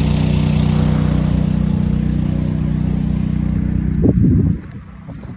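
An engine running steadily at a constant speed, with a brief louder surge about four seconds in, after which the sound drops away sharply.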